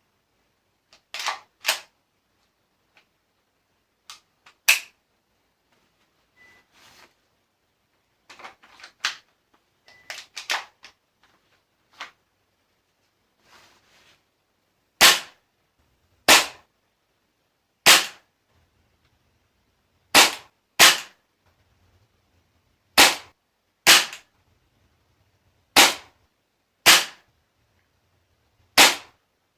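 Tokyo Marui MP7A1 gas blowback airsoft gun fired single-shot, each shot a sharp crack with the slide's blowback clack. There are scattered quieter clicks and clacks for the first half, then about ten loud shots one to two seconds apart. At this close range the blowback noise is loud.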